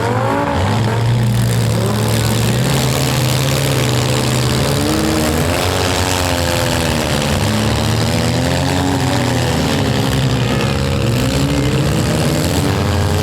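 Several four- and six-cylinder demolition-derby car engines running loudly at once, their pitch repeatedly rising and falling as the drivers rev and back off, over a steady low engine drone.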